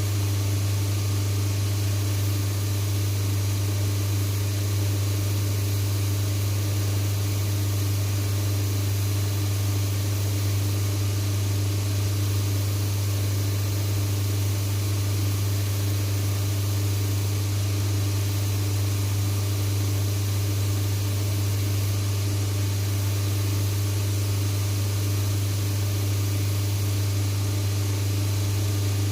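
Electric motor of a workshop machine running steadily: a strong low hum with a few steady tones over a hiss, cutting off suddenly right at the end.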